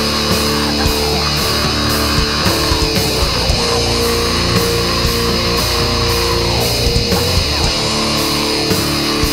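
Blackened doom metal: heavily distorted electric guitars holding slow, sustained chords over drums with evenly repeating cymbal hits.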